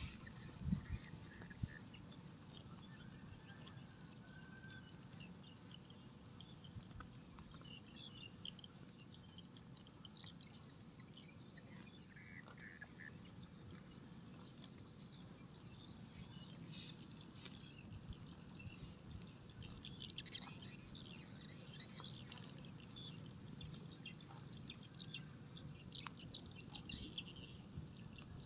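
Faint birds chirping and calling over a low steady background hum, with a couple of sharp knocks about a second in.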